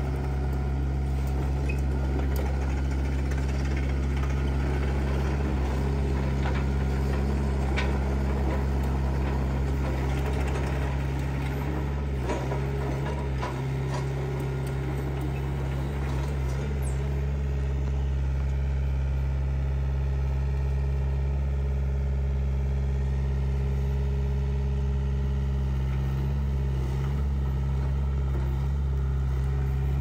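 Mini excavator's diesel engine running steadily, with a few knocks and scrapes from the bucket as it digs.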